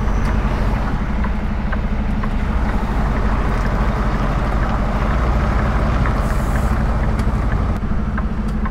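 Semi truck's diesel engine running steadily at low revs, heard from inside the cab as the truck creeps in reverse into a parking spot.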